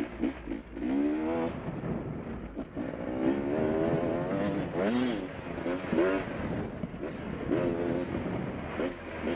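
Beta 250RR two-stroke dirt bike engine, ridden on the trail, revving up and down over and over as the throttle is worked. It gives short rising surges with drops in pitch between them.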